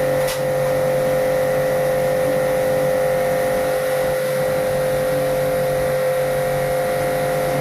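A machine running steadily with a constant whine and a low hum beneath it.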